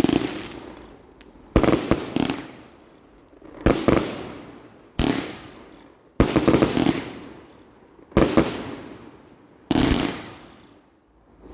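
A 120-shot firework cake firing its shots one after another: a sharp bang about every one and a half to two seconds, each trailing off over a second or so, about seven in all.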